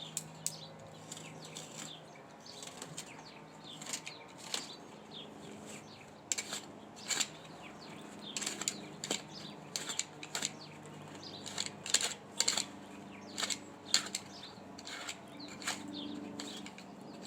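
Irregular sharp clicks and light clattering, several a second at times, over a faint low hum.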